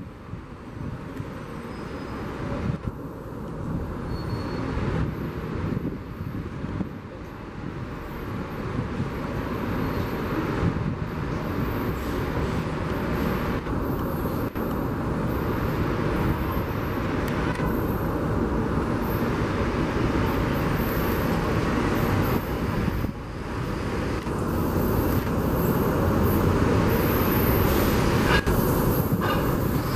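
Metro train approaching along an elevated track, its rumble growing steadily louder, over city traffic noise.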